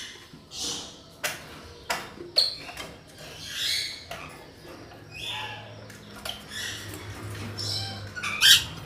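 Rainbow lorikeets giving irregular harsh squawks and short screeches, the loudest calls coming near the end.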